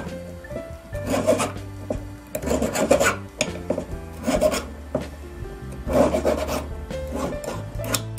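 Small metal file rasping in short, uneven strokes on the split steel tip of a flat-head screwdriver, rounding off its edges inside and out. Background music with held notes plays underneath.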